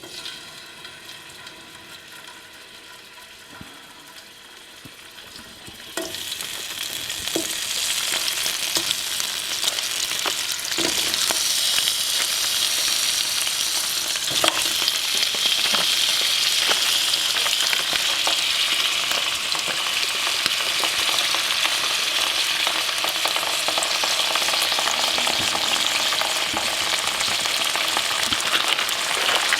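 Seafood going into a pan of hot olive oil and frying: the sizzle starts suddenly about six seconds in and carries on loud and steady, with a few knocks of a utensil stirring in the pan.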